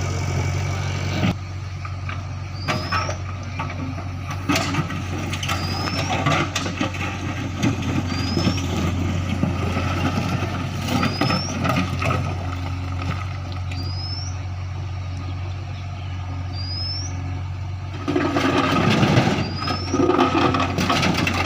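Diesel engine of a JCB 3DX backhoe loader running steadily while it digs and loads soil, with scattered knocks and clatter from the working machinery. The engine grows louder and rougher for a few seconds near the end. A short high rising chirp repeats about every three seconds over it.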